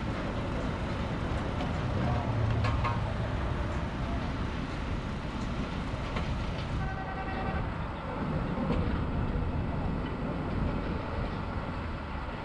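Engine of a truck-mounted drilling rig running steadily, a continuous low mechanical rumble as it bores for a bridge pile. A brief high tone sounds about seven seconds in.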